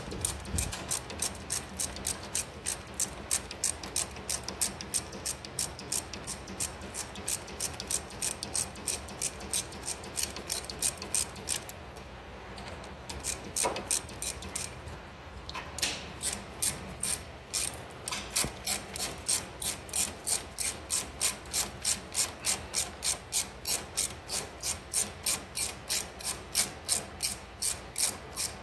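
Hand ratchet wrench clicking steadily, about three clicks a second, as it is swung back and forth to back out a bolt on a rusted front brake caliper. The clicking stops briefly a couple of times about halfway through.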